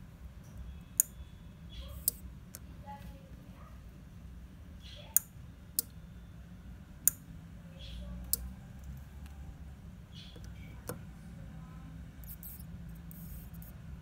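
A small 12 V PCB relay on a pressure-switch module clicks as it pulls in and drops out while the trimmer is adjusted across the switching threshold. There are about seven sharp clicks at irregular intervals.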